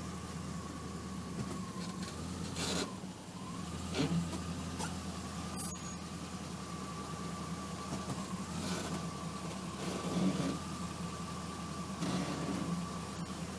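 Chevrolet Camaro running, with a steady whine throughout. A loud, very high-pitched squeal lasts about half a second near the middle, and a shorter one comes near the end; the owner suspects the brakes.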